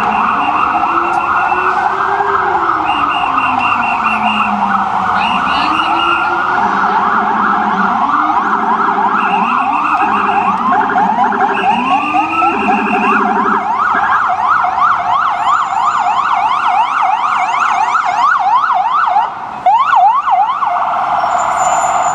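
Ambulance electronic sirens responding: a slow rising-and-falling wail that changes about halfway through to a fast yelp of several sweeps a second. A second, low-pitched siren sweeps slowly up and down underneath, and short horn blasts come in several times.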